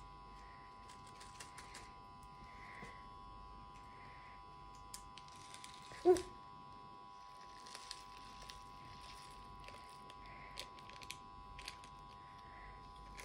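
Small beads being poured out of a clear plastic bag onto slime and the tabletop: scattered light clicks with soft crinkling of the bag, and one louder knock about six seconds in.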